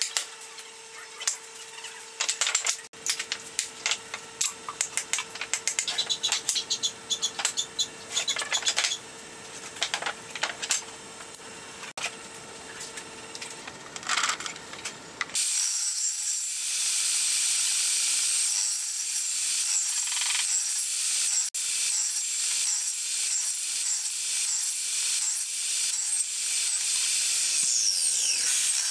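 Scattered short knocks and scrapes of a wooden block being handled on a worktop. About halfway through, a table saw starts a steady, high-pitched run as its blade cuts repeated kerfs to clear a notch in a pine block.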